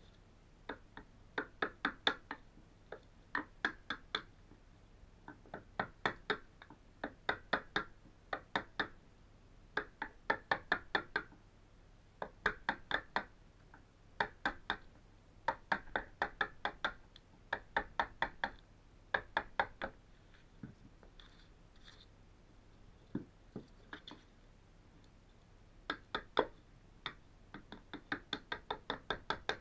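A chisel chipping out old plywood and timber from a damp caravan floor. Sharp knocks come in quick runs of several strokes with short pauses between, thinning out for a few seconds past the middle.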